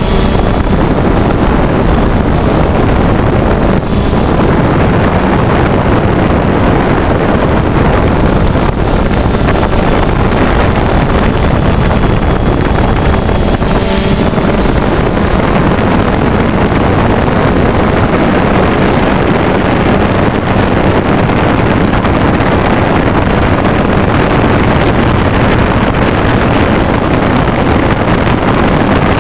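Motors and propellers of a remote-controlled hovering aircraft carrying the camera, a loud, steady whir heard from on board with wind rushing over the microphone.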